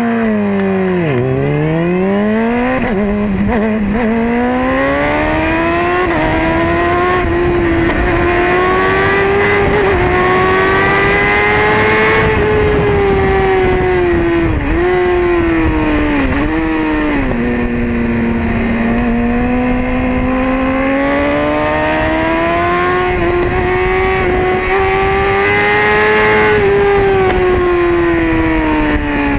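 Honda CBR600RR inline-four race engine heard onboard, pulling away hard from a standing start: the revs climb and drop sharply with quick upshifts in the first several seconds, then hold high. Around the middle the note dips sharply a few times and settles lower and steady for a while before climbing again near the end.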